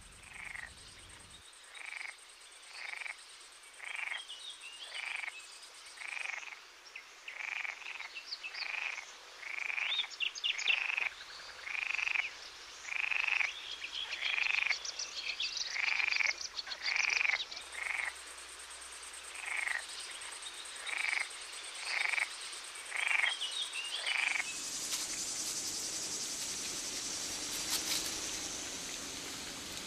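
Frogs croaking in a steady series of short calls, about one a second, which stop about 24 seconds in. A steady hiss-like background takes over after that.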